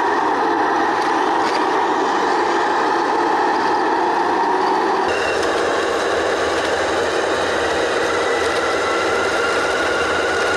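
Radio-controlled model vehicles running, first a model semi truck and then a model Caterpillar bulldozer, with a steady engine-like drone and motor whine. About five seconds in the sound changes abruptly, and near the end a whine rises slowly in pitch.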